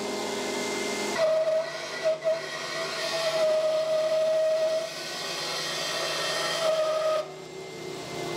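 Bandsaw ripping a maple board along its fence. The motor runs steadily, then about a second in a steady whine starts as the blade cuts through the wood, and it drops back to the plain running hum about a second before the end.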